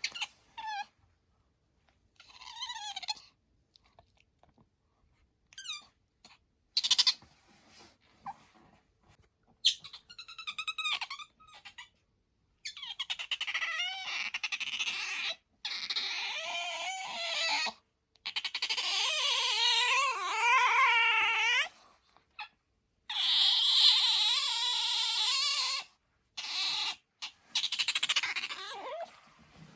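Asian small-clawed otter squeaking: shrill, high-pitched calls that waver up and down in pitch, short and scattered at first, then long unbroken bouts of squeaking from about twelve seconds in.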